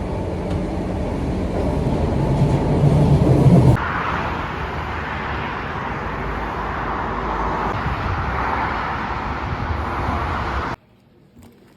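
Steady vehicle rumble and road noise, cut off abruptly near the end to much quieter background sound.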